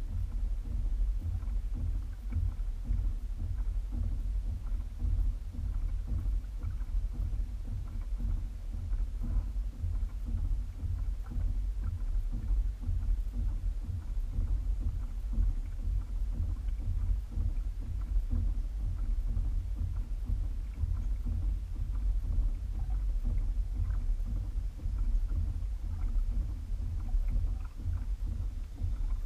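Continuous uneven low rumble of a Hobie Revolution 16 pedal kayak under way through calm water, with faint light ticks scattered throughout.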